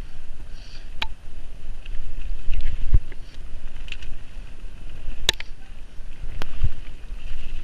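Mountain bike rolling fast down a muddy forest trail: a steady low rumble of wind and tyres on the bike-mounted microphone, with sharp clicks and knocks of the bike rattling over rough ground about a second in and twice more after five seconds.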